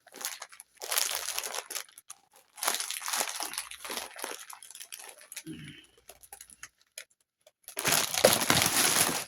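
Packaging wrap being handled and unwrapped, crinkling and rustling in irregular bursts, with a short pause about seven seconds in and louder rustling near the end.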